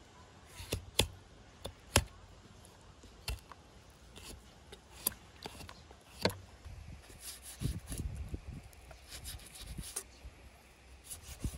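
Knife cutting and scraping the skin off a raw sheep's head on a wooden cutting board, as the skin is pulled back by hand. Soft rubbing and cutting sounds, with scattered sharp clicks and knocks.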